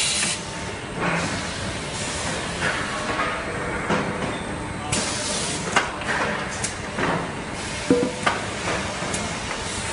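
Pallet conveyor assembly line and factory floor noise: a steady hiss of machinery broken by irregular knocks and clanks, the sharpest several in the second half.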